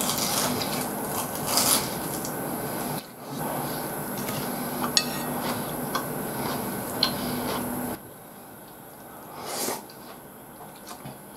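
A person chewing and eating with mouth sounds, biting into fried shrimp, with a few sharp clicks of chopsticks against a plate and bowl. A steady background hiss drops away about eight seconds in.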